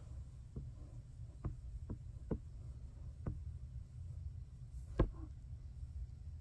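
Light clicks and taps from handling a nail polish brush, its bottle and a plastic nail stand, about five soft ones spread out and one sharper knock about five seconds in.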